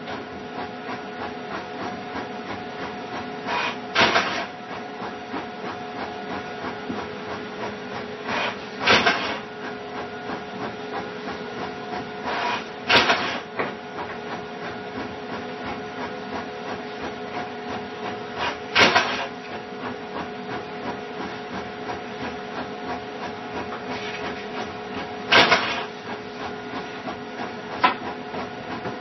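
A steady mechanical hum with a couple of faint steady tones in it, broken six times by a brief, louder noise a few seconds apart.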